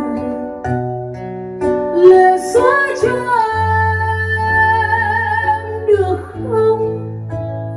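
A Vietnamese lyrical ballad playing from CD through a hi-fi system with full-range speakers in wooden cabinets: plucked guitar notes, then a long held melody line with vibrato over a steady bass note from about three to six seconds in.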